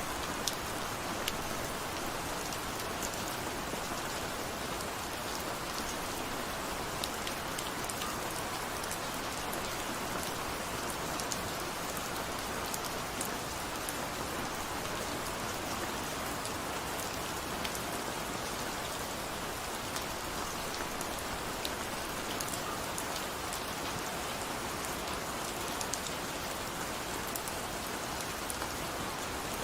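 Steady rainfall, a continuous hiss with scattered sharp drop impacts.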